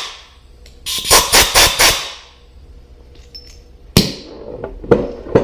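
Compressed air rushing out of an air die grinder body with its vane motor removed, in about five quick pulsing blasts as the lever is pressed, like a blowgun. Near the end come a few sharp clicks as the air hose fitting is handled.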